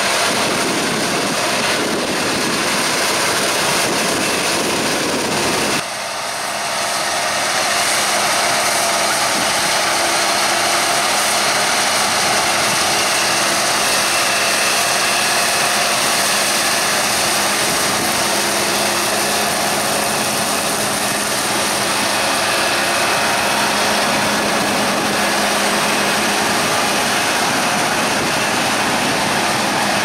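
Fendt Ideal 9T combine harvester and Fendt 720 Vario tractor running together at working speed, a loud, steady machine drone with a constant hum. The low rumble drops away sharply about six seconds in, and the drone carries on unchanged.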